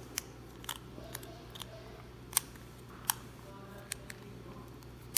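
Light plastic clicks and taps as a plastic lens adapter ring holding a prescription lens is worked into an Oculus Quest 2 lens housing, several short clicks spread a second or so apart, the loudest near the end as it snaps into place.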